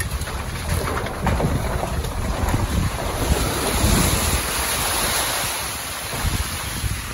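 Wind buffeting the microphone of a phone held out of a moving car's window: a loud, gusting rush with a heavy low rumble, over the car's tyres rolling through mud and loose stones.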